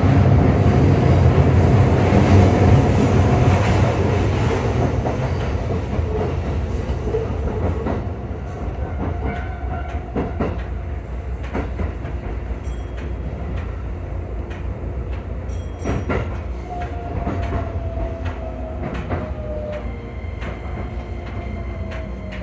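Shin-Keisei electric train running on the track, heard from inside the cab: a steady low rumble that eases over the first several seconds, with wheels clicking over rail joints and points all the way through. A faint whine falls in pitch about three quarters of the way through.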